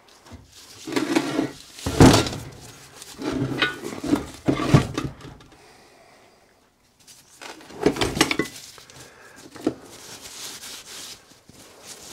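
Heavy cast-iron steam-engine parts clunking and scraping against a metal workbench as they are handled and turned over, in several bursts of knocks with short pauses between.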